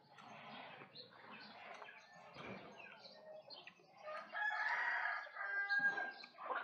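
A rooster crows once, a single drawn-out crow beginning about four seconds in and lasting roughly two seconds.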